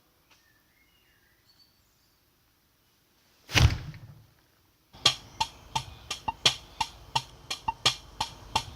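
A few faint high chirps, then one loud thud about three and a half seconds in, followed a second later by a steady rhythmic clicking beat, just under three clicks a second.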